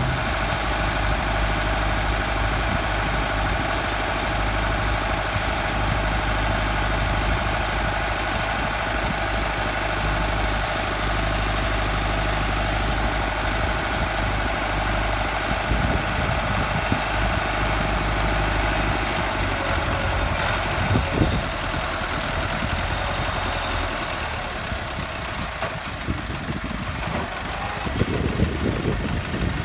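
Massey Ferguson 385's 85 hp four-cylinder diesel engine running steadily under load, driving a wheat straw chopper through its PTO shaft, with the chopper's machinery running along with it. A few short knocks come about two-thirds of the way in.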